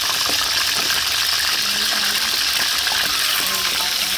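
Catfish steaks frying in hot oil in a steel wok: a steady sizzle.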